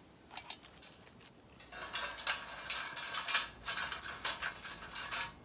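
Thin sheet-metal parts of a folding stainless-steel fire stand clinking and rattling as a metal plate is fitted into its frame: a dense run of sharp clinks from about two seconds in, with one loudest clink a little past the middle.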